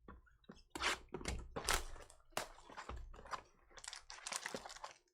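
Trading cards and packs being handled: an irregular run of sharp clicks, snaps and short rustles.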